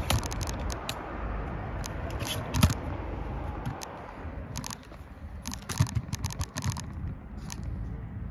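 A run of sharp clicks and knocks over a steady low rumble, with one louder knock about two and a half seconds in and a quick cluster of clicks around six seconds in.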